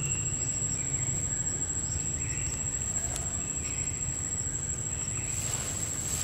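Steady, high-pitched insect drone, one unbroken tone, over a low steady rumble, with a few faint short chirps; a hiss rises near the end.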